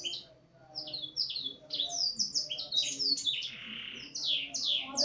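Domestic canary singing, its song filled in with black-throated canary phrases: a fast run of high, downward-sweeping whistled notes, with a buzzy rasping note about three and a half seconds in.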